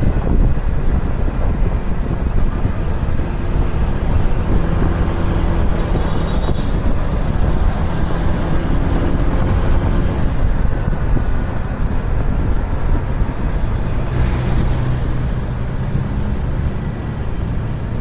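Honda ADV160 scooter on the move, its single-cylinder engine running under heavy wind buffeting on the microphone and road rumble. The engine pitch shifts as the speed changes, with a brief hiss about two-thirds of the way through, and the ride gets a little quieter near the end.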